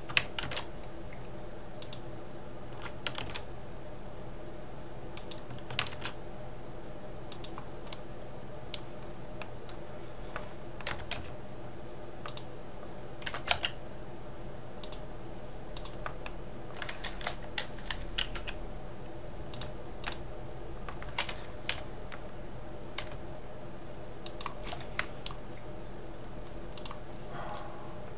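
Computer keyboard keys and mouse buttons clicking irregularly as shortcuts and view moves are made in 3D software, a few clicks at a time with a denser flurry around the middle, over a steady low hum.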